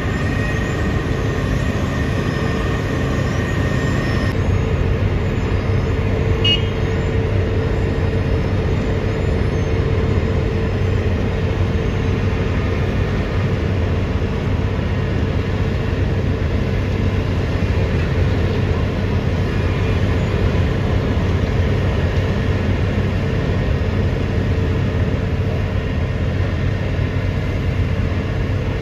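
Asphalt cold milling machine at work, its engine and cutting drum making a loud, steady, even din with a constant hum and a steady mid-pitched tone. A higher whine in the mix stops about four seconds in.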